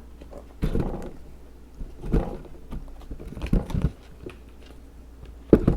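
Handling noises as a pair of sneakers is turned over and shown: a few soft knocks and rustles about a second and a half apart, the loudest near the end.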